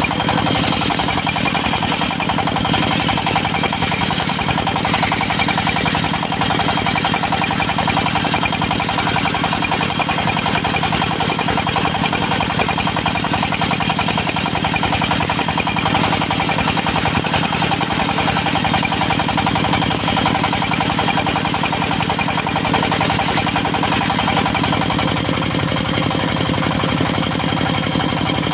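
Diesel-driven portable circular sawmill running steadily and loudly, its engine and saw making an unbroken mechanical drone with steady whining tones.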